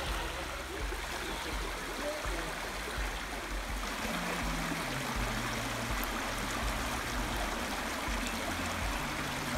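Shallow creek water running and gurgling steadily over flat rock ledges.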